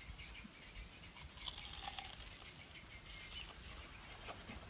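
Faint chewing and mouth clicks from a person eating, with scattered soft ticks.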